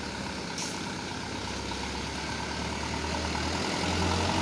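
Truck engine running as the truck comes closer, the low rumble growing steadily louder, with a brief hiss about half a second in.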